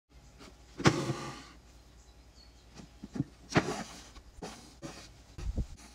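Embroidery needle and thread being pulled through cotton fabric held taut in a hoop: a series of short rasping swishes, the loudest about a second in and again about three and a half seconds in.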